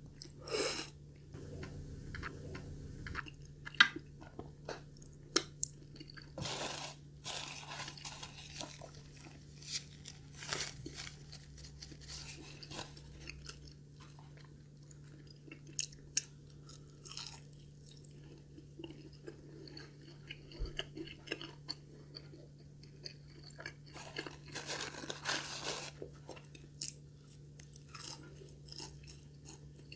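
Close-miked eating: chewing Japanese curry rice and crunching into crispy breaded katsu cutlets, with scattered sharp crunches and several longer bursts of crunching.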